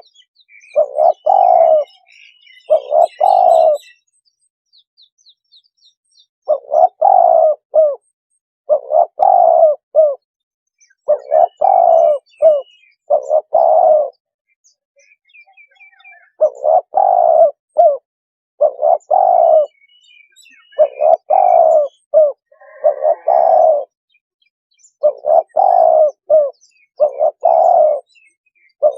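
Spotted dove cooing, a decoy call for luring wild doves: phrases of a few short, low coos repeat about every two seconds, with one longer pause a few seconds in. Small birds chirp faintly behind it.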